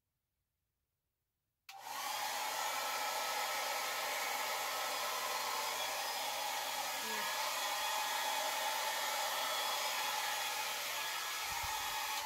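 Handheld hair dryer running steadily, blowing wet poured acrylic paint across canvases in a Dutch pour. It cuts in suddenly a little under two seconds in, after dead silence.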